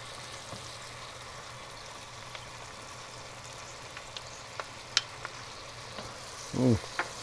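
Steady sizzle of orange peel and slivered almonds and pistachios frying with sugar in butter and oil, with a few light clicks of a wooden spoon against the pan about four to five seconds in.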